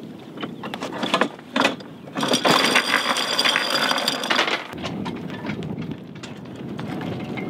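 Light anchor chain rattling out over the bow as the anchor is dropped: a few clicks and knocks, then about two seconds of continuous rattle. After it, steady wind and water noise.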